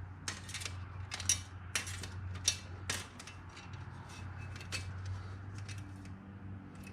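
Steel riding-mower blades being handled, giving a string of light metallic clicks and clinks, most of them in the first three seconds, over a steady low hum.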